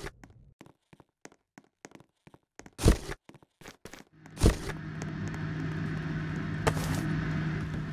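Scattered clicks and two sharp knocks, then a steady hum with a low tone starts about four seconds in and keeps going.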